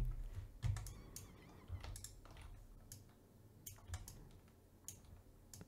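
Faint, scattered clicks of a computer keyboard and mouse, a dozen or so short taps spread over the few seconds.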